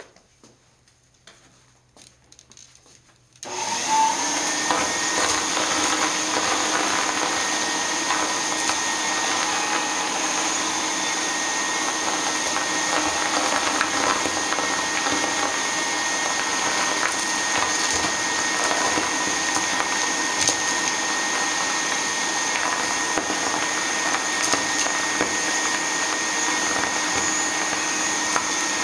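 A few faint clicks, then an antique Brother vacuum cleaner switched on about three and a half seconds in, its motor running steadily with a high whine over the rush of air.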